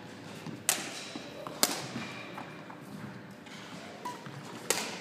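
Badminton racket strings striking a shuttlecock in a rally: three sharp hits, the first two about a second apart and the third about three seconds later, each with a short echo off the walls of a sports hall.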